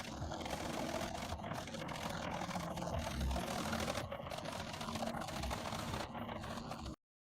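Large drum wood chipper running, its toothed steel drum chewing through wood with a rapid, irregular clatter and a few low thuds. The sound cuts off suddenly about seven seconds in.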